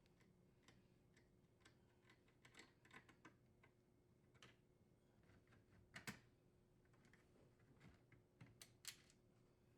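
Very faint, scattered clicks and light metal taps of a T20 Torx driver working the screws out of a dishwasher door hinge, the loudest pair about six seconds in and a quick cluster near the end.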